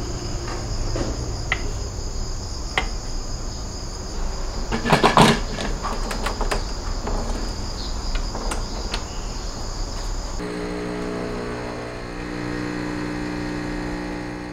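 Sharp metallic clicks and knocks of the portafilter being handled and locked into a home espresso machine, over a steady high chirring of insects. About ten seconds in, the machine's pump starts a steady low hum as it brews espresso.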